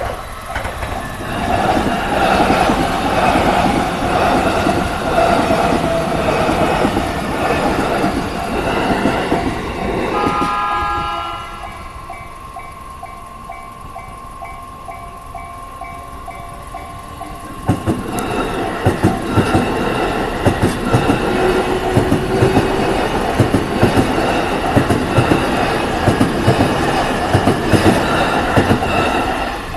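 Japanese level-crossing alarm bell ringing steadily while two electric trains pass over the crossing one after the other, their wheels clattering rhythmically over the rail joints. The first train passes in roughly the first eleven seconds and the second comes through from about 18 seconds in, with the bell still ringing in the gap between them.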